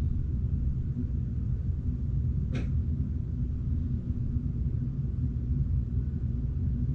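Steady low background hum, with a single brief faint tap about two and a half seconds in.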